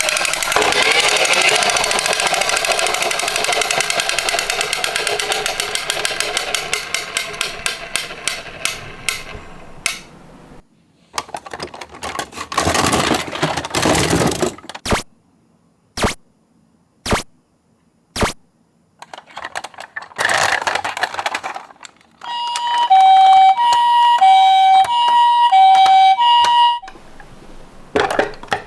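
Die-cast Tomica toy ambulances rolling down a slope, a dense clatter of small wheels that slows into separate clicks and dies away about ten seconds in; a few knocks and two shorter runs of rolling clatter follow. Near the end a hi-lo two-tone Japanese ambulance siren sounds for about five seconds.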